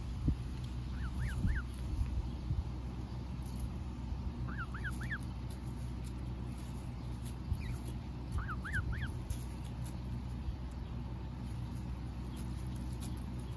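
Canada goose goslings peeping: quick high chirps in short runs of three or four, a few seconds apart, over a steady low rumble.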